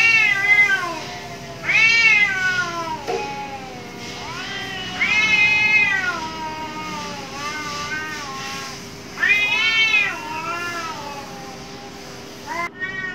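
Two cats in a territorial standoff, yowling at each other: about five loud, long drawn-out wails a few seconds apart, each wavering up and down in pitch before trailing off.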